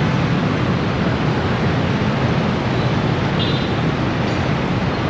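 Steady rumble of a Yamaha Aerox 155 scooter's engine and road noise at crawling speed in heavy traffic, heard close up from the rider's camera, mixed with the noise of the surrounding traffic.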